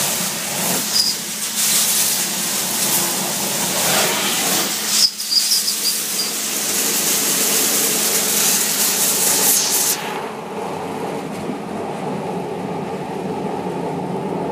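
Sewer vacuum hose nozzle sucking in air with a rushing hiss. About ten seconds in the hiss cuts off abruptly, leaving a lower steady drone.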